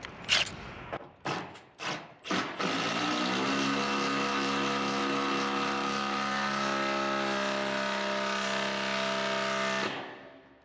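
A few handling knocks, then a cordless impact driver hammering a screw into a metal roof for about seven seconds, rising briefly as it starts and then holding steady before stopping abruptly. It struggles to drive the screw in.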